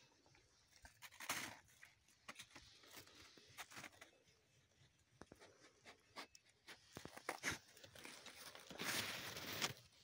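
Faint crunching and rustling in snow and brush, with scattered small clicks and a longer rustle near the end.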